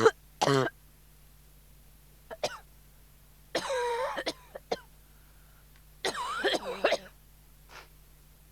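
A person coughing and clearing their throat in separate harsh bouts, about three seconds apart, with small mouth clicks between them.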